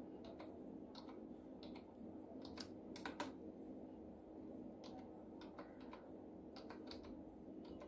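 Typing on a computer keyboard: faint, irregularly spaced key clicks over a steady low background hum.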